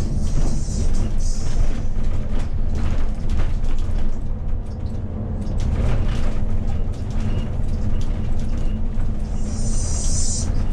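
Hino R260 coach under way, heard from inside the cabin: a steady low engine and road rumble with scattered body rattles and knocks. A hiss comes in briefly near the start and again near the end.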